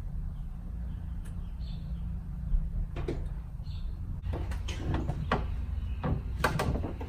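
Light metallic clicks and short scrapes of brake hardware being handled while the caliper bracket's pad grooves are greased. A few isolated clicks come first, then they grow more frequent in the second half, over a steady low rumble.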